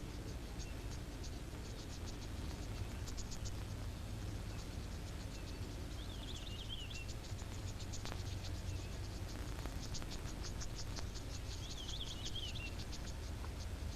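Insects chirping in rapid trains of high clicks that come and go, with a short wavering high call twice, about halfway through and near the end, over a low steady rumble.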